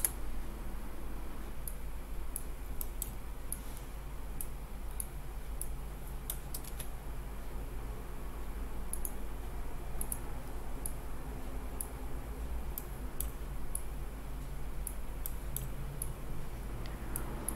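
Scattered light clicks of a computer mouse and keyboard, irregularly spaced, over a steady low hum.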